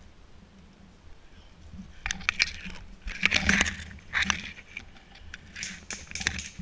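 Leafy undergrowth rustling and crackling close against the microphone in irregular bursts of brushing and snapping, starting about two seconds in.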